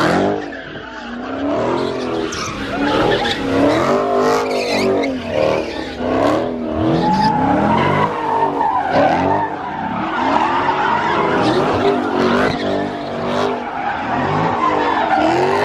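Car engine revving up and down over and over while its tyres squeal and skid through donuts on the pavement.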